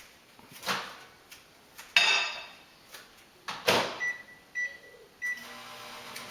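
Microwave oven being used. There is a clunk, then the door bangs shut about two seconds in, followed by a few knocks and three short keypad beeps. The oven then starts a steady hum as it begins heating.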